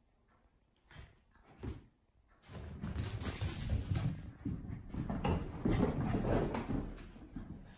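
A terrier and a kitten scrambling and chasing across a wooden floor and onto a sofa: two soft knocks about a second in, then continuous scuffling, paw skids and thumps.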